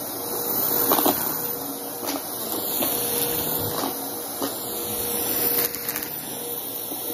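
Vacuum cleaner motor running steadily, with a thin steady hum under the noise. Scattered knocks and clicks come through as chunky debris is sucked up.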